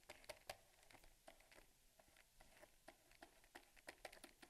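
Near silence, with faint irregular ticks and taps of a stylus on a pen tablet as handwriting is written.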